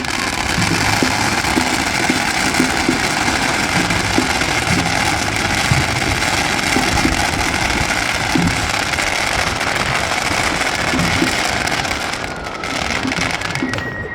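Fireworks going off in a dense, continuous barrage of bangs and crackling, easing off near the end.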